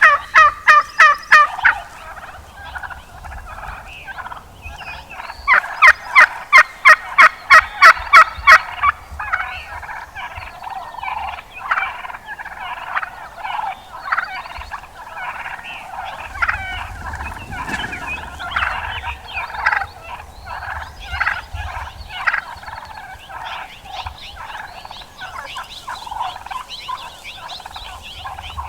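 Gould's wild turkeys calling: two loud runs of rapid yelps, about four a second, one at the start and one from about five to nine seconds in. After that come many quieter, overlapping gobbles and clucks from several birds.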